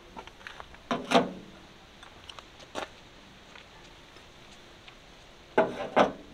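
Two short bursts of knocking and clattering, one about a second in and one near the end, with a single sharp click between.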